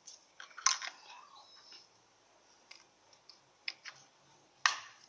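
Brittle glitter-glue slime being grabbed and worked by hand, giving scattered small clicks and ticks, with two louder sharp clicks, one just under a second in and one near the end.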